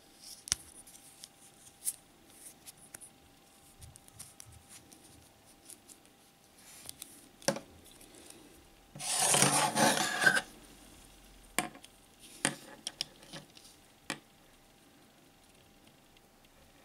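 Handling noises as a wristwatch is taken off and measured with a plastic caliper: scattered small clicks and taps, and one loud rasping rub lasting about a second and a half a little past the middle.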